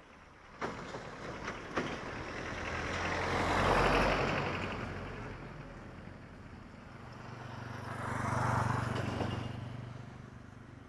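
Two motor vehicles passing by one after another, each rising and fading away, the first one louder. A few sharp clicks sound in the first couple of seconds.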